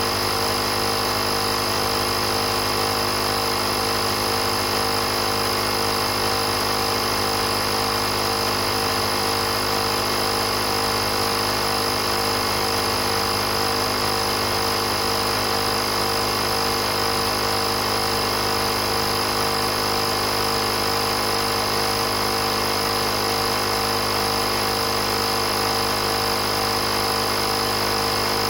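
Portable electric air compressor running steadily: an even mechanical hum with a constant high whine, not changing in pitch or level.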